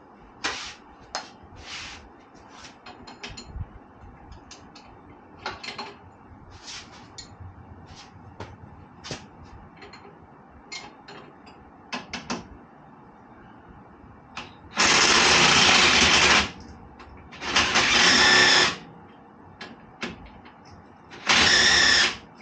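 A handheld power tool run in three bursts of a second or two each, starting about two-thirds of the way in and again near the end. Before them come scattered clicks and clinks of tools and metal parts.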